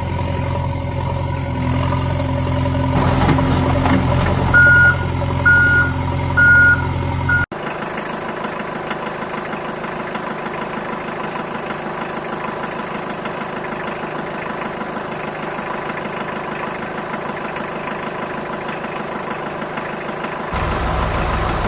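Toy vehicle sounds: a steady motor hum with four short beeps about a second apart. It cuts off abruptly and a different steady whirring runs on.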